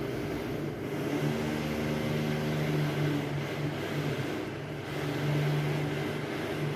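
A steady low mechanical hum, with a couple of held low tones over an even hiss.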